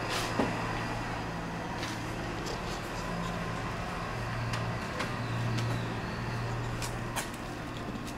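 Steady low mechanical hum, swelling a little around the middle, with a few light clicks scattered through.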